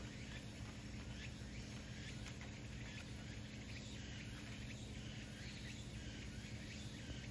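A cat's claws scraping on tree bark in repeated soft strokes, about two or three a second, over a steady low background hum.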